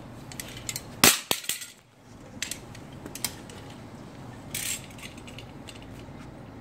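Hands handling clear plastic tubing against a plastic union fitting: a sharp plastic click about a second in, a few lighter clicks after it, and a short scraping rustle past the middle.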